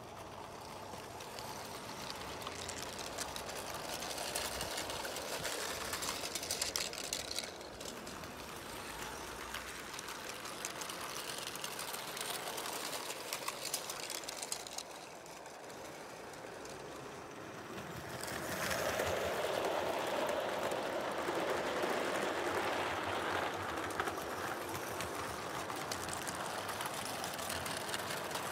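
O gauge coarse-scale model goods train running past: metal wheels of four-wheel wagons clattering and ticking over the rails and rail joints, dipping briefly a little past halfway and then louder for the last third.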